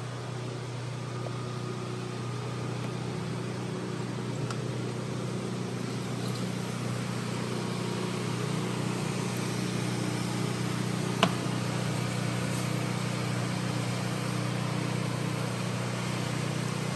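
A steady low mechanical hum that grows slightly louder, with one sharp click about eleven seconds in.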